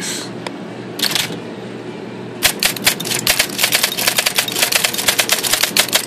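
Olympia SGE 35 heavy-duty electric typewriter typing: after one short clatter about a second in, a rapid run of crisp, evenly paced key strikes, several a second, starts about two and a half seconds in, over a low steady hum.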